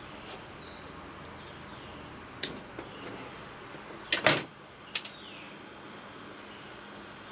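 A few sharp clicks and knocks from handling wiring and lever-nut connectors, the loudest a double knock about four seconds in. Faint birds chirp in the background.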